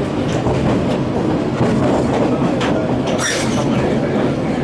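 Sagano scenic train running along the track, heard from inside the carriage: a steady rumble and clatter of wheels on the rails, with a brief high wheel squeal about three seconds in.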